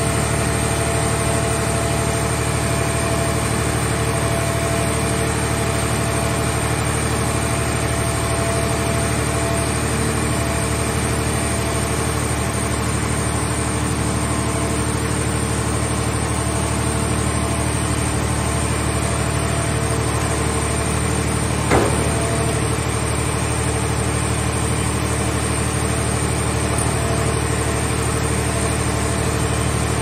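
Mobile car-body baler's engine and hydraulic system running steadily as its grab arm moves a scrap car shell, a constant drone with a few steady whining tones. About two-thirds of the way through there is one short metal clank.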